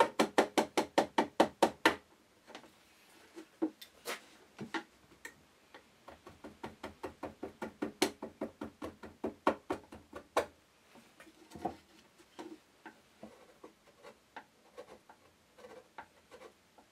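Hand striking the handle of a wood chisel in quick, even taps, about six a second, as the chisel chops away the excess of glued-in pine plugs. A second run of taps comes midway, and near the end only a few lighter taps and paring cuts.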